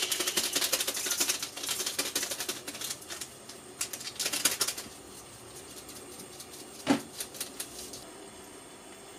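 Rapid clicking and rustling from handling food and utensils while preparing fried-tofu sushi rice, dense for about five seconds, then a short knock and a few clicks near seven seconds before it goes quiet.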